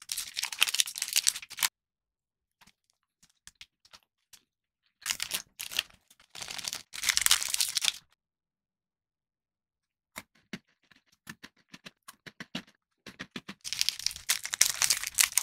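Plastic chocolate-bar wrappers being torn open and crinkled, in three loud bursts: at the start, about five to eight seconds in, and near the end. In the gaps come sparse soft crunches and clicks.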